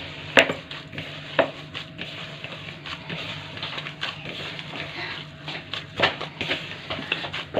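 Mashed potato dough being kneaded by hand in a plastic bowl as cornflour is worked in: a soft squishing, rubbing sound with a few sharp knocks against the bowl, about half a second in, near a second and a half, and again at six seconds.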